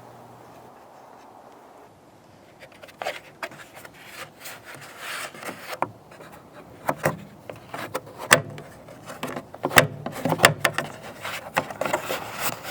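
Irregular rubbing and scraping with sharp clicks and taps, starting about three seconds in, as lint is cleared by hand from an exterior dryer vent hood.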